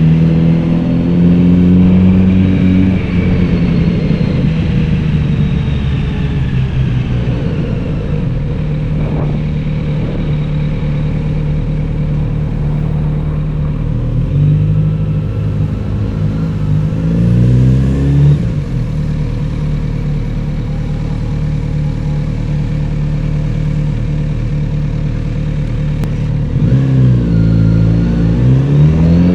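Kawasaki Z900RS inline-four with a Beet exhaust under way. The engine pulls up through the revs, then runs at steady cruising revs. It climbs again to a sharp drop at a gear change about two-thirds of the way through. Near the end come quick rev blips as it shifts down.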